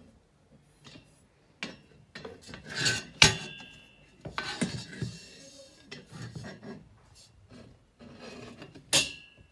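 Black metal desk legs and cross-braces being handled and fitted together: scraping and rubbing of metal, with sharp clinks that ring briefly, the loudest about three seconds in and another near the end.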